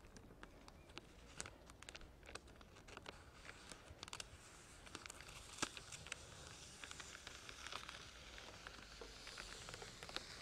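Scissors cutting clear plastic laminating film: faint, irregular small snips and clicks.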